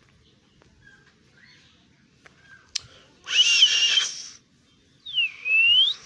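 A young parakeet gives one harsh, wavering call about three seconds in. Near the end comes a clear whistle that slides down and back up in pitch.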